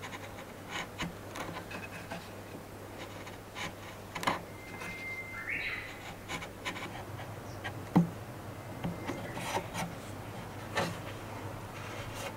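Steel blade scraping and shaving the wooden tip of a longbow, carving the string nock: irregular short scrapes and sharp clicks, with a brief high whistle about five seconds in.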